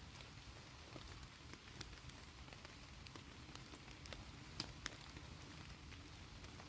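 Faint steady rain hiss with scattered small ticks and crackles, two sharper ones a little past halfway.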